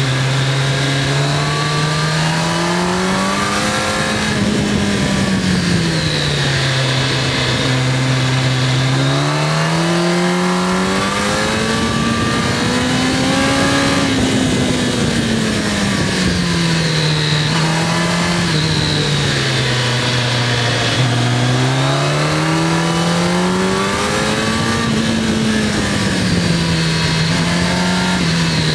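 Kawasaki ZX-10R sport bike's inline-four engine running hard, its note rising and falling several times as the rider accelerates and slows through a run of bends, over constant wind rush.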